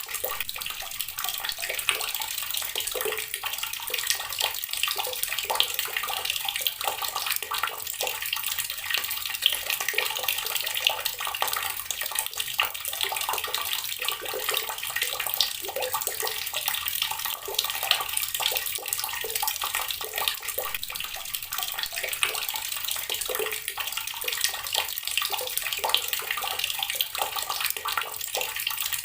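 Water tap running steadily, the stream splashing into a basin below.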